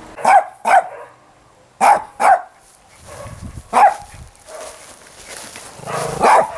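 A dog barking: five short, sharp barks, mostly in quick pairs, over the first four seconds.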